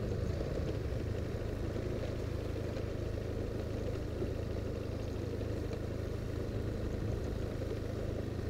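Engine of a moving road vehicle running steadily at cruising pace, a low hum with rumbling road and wind noise.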